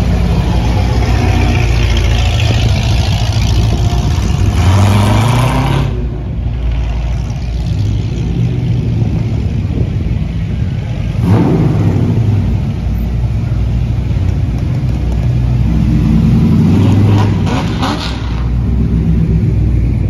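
Cars driving past one after another, among them a C4 Corvette's V8, the engine noise swelling and rising in pitch several times as each car accelerates by.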